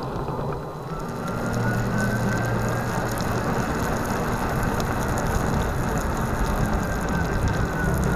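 Solowheel self-balancing electric unicycle rolling over a wet street: tyre hiss on the wet pavement with a clicking rattle, and a thin whine that slowly rises and then falls.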